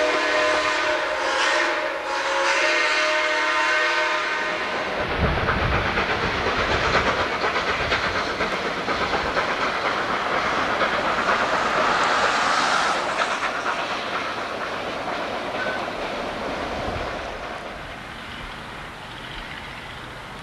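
Narrow-gauge steam locomotive's chime whistle sounding a long, steady chord for about four seconds, then it stops and a steady rushing, rumbling noise of the working train takes over, fading near the end.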